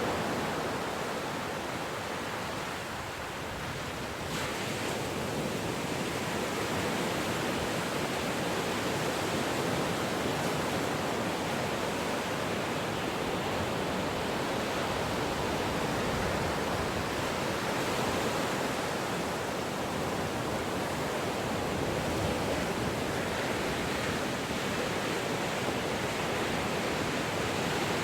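Ocean surf: a continuous rushing wash of waves that eases slightly a few seconds in, then swells back and holds steady.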